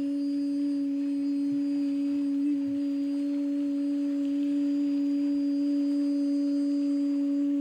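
A steady low pure tone, held at one pitch without swelling or fading, over a faint wash of sea noise.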